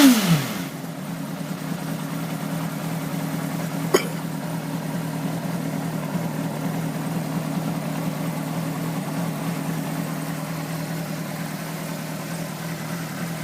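Honda CBR600RR's inline-four engine just after starting on its starter: the revs fall back from the start-up flare, then it idles steadily. A single sharp click comes about four seconds in.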